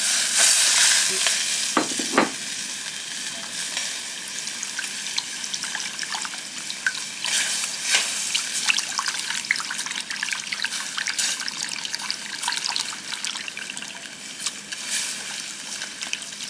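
Pan gravy of duck drippings and cornstarch sizzling in a hot stainless saucepan. It hisses loudly for about the first second and a half as dark juice is poured in, then bubbles steadily while a silicone whisk stirs it, with many small ticks as the whisk moves around the pan.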